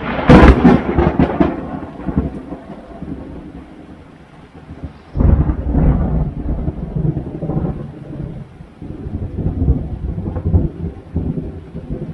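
Thunder from a lightning strike very close by: a sharp crack just after the start, rumbling off, then a second heavy roll of thunder that starts suddenly about five seconds in and rumbles on in swells. Heavy rain falls on the boat throughout.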